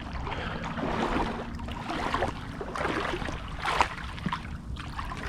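River water splashing and sloshing in the shallows in several irregular swells while a hooked musky is being landed at the bank.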